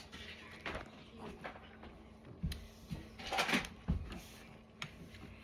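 Faint scattered clicks and soft knocks, with a brief rustling burst about three and a half seconds in.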